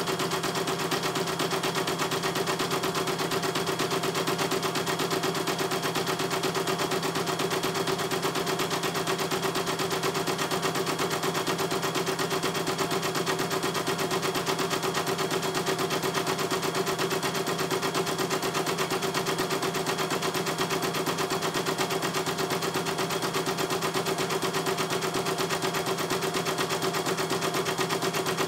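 CNY E900 computerized embroidery machine stitching a design: a fast, even clatter of needle strokes over a steady machine hum as the embroidery unit moves the hoop.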